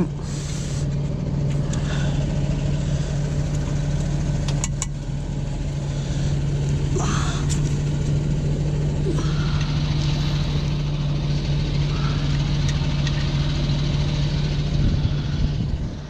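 Fendt 724 tractor's six-cylinder diesel engine idling steadily, with a few sharp metal clicks as the plough hitch is worked by hand.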